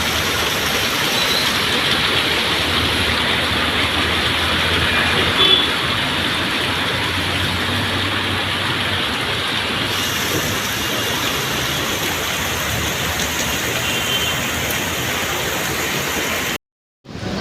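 Steady wash of traffic and rain noise on waterlogged city streets, cut off by a brief silence near the end.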